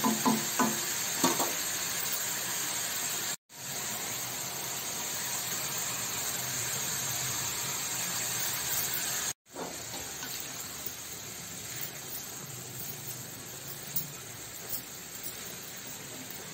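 Chopped carrots and green beans sizzling in oil in a kadai as they are stir-fried with a wooden spatula, a steady hiss. There are a few sharp knocks of the spatula on the pan in the first second or so and light scrapes later on; the sound drops out briefly twice.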